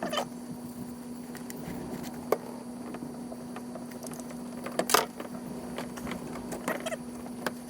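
A steady low hum with a few sharp, scattered clicks and knocks, the loudest about five seconds in.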